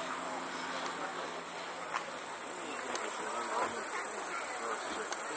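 Crickets chirping steadily in a continuous high-pitched trill, with faint crowd chatter underneath.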